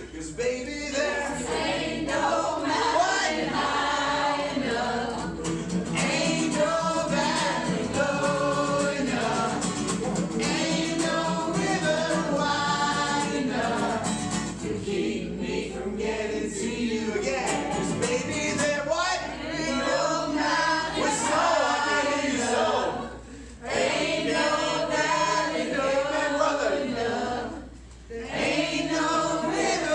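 A group of voices singing together in a casual sing-along, led by a strummed acoustic guitar. The singing drops off briefly twice in the second half.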